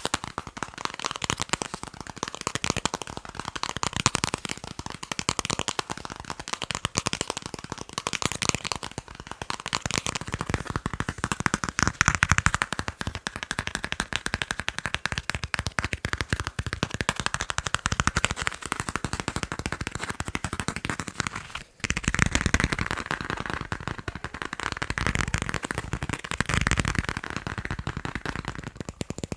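Fast ASMR tapping on objects: a dense, rapid run of close-set taps and clicks. The tapping breaks off for a moment about three-quarters of the way through and then resumes, with more low thuds afterwards.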